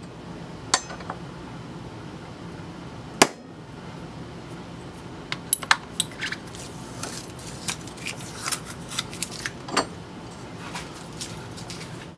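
Steel transfer punch struck with a hammer through the brake rotor's mounting holes to mark an aluminium adapter: a sharp ringing strike just under a second in and a louder one about three seconds in. Then a run of light metallic clinks and rattles as the steel rotor and punch are moved about on the bench.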